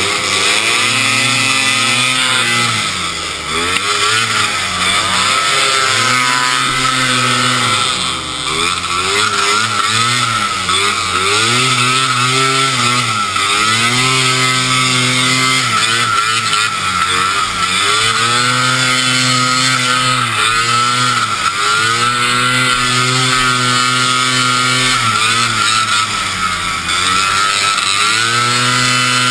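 Vintage racing snowmobile's two-stroke engine, heard close up from the rider's helmet, revving up and dropping back over and over every couple of seconds as the throttle is worked around the track, over a steady rush of wind and track noise.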